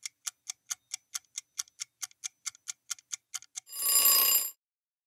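Countdown timer sound effect: a clock ticking evenly about four times a second, then a short alarm ring for just under a second as the time runs out.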